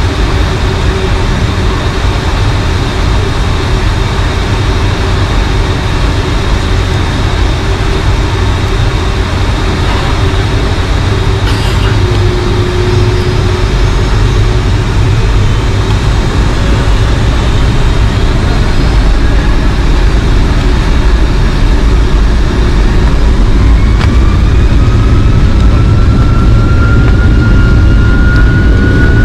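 Cabin noise of a Boeing 757-200 with Rolls-Royce RB211-535E4 turbofans: a loud, steady rumble with a faint steady whine. From about three-quarters of the way through, a whine climbs steadily in pitch and the noise grows louder as the engines spool up for takeoff.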